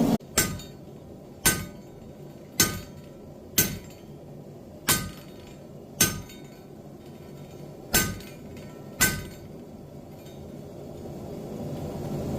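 Hand hammer striking a steel leaf forging tool to shape a leaf, eight sharp blows about a second apart, each with a short metallic ring. The blows stop about nine seconds in.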